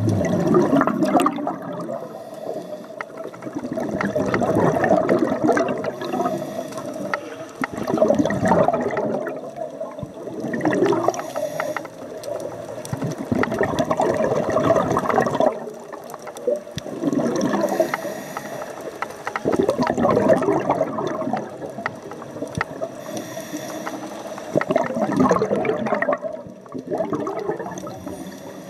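Scuba diver's exhaled bubbles rushing and gurgling in bursts every few seconds, heard underwater, over a faint steady hum.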